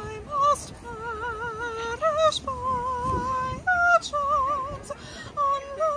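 A young woman singing unaccompanied, holding one note after another with a wide, even vibrato and short breaths between phrases.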